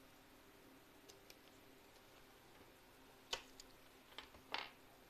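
Small metal clicks from the gold snap hook and rings of a leather bag strap as it is clipped onto the bag's side ring and handled: two faint ticks about a second in, then a few sharper clicks over the last two seconds.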